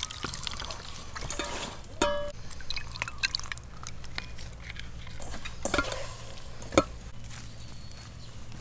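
Liquid dripping and sloshing while food is handled, with scattered clicks of cookware. There is a brief ringing clink about two seconds in and a single sharp knock about two-thirds through.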